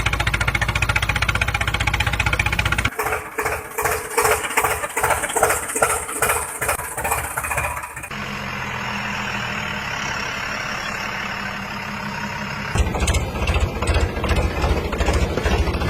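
Tractor engines running, in several clips joined by abrupt cuts about three, eight and thirteen seconds in. Between the cuts the sound changes from a dense low pulsing to a choppy rhythm, then to a steadier drone, then back to pulsing.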